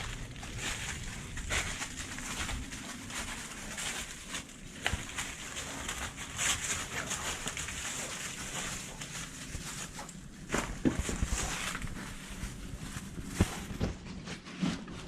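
Irregular crunching, scuffing and rustling of footsteps moving over rock and leaf litter, with a few sharper knocks near the end.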